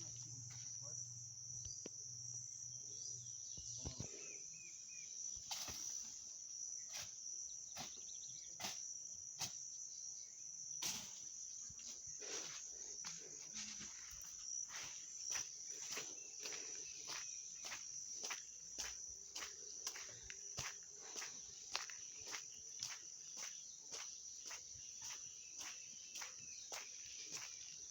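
Insects droning in one steady high-pitched note, with crisp regular footsteps, about one and a half a second, starting around six seconds in.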